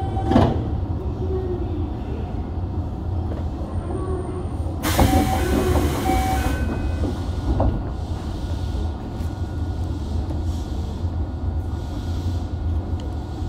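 Toei 5300 series subway car standing at a platform, heard from above its VVVF inverter: a steady low hum of running equipment. About five seconds in, a loud hiss lasts about a second and a half.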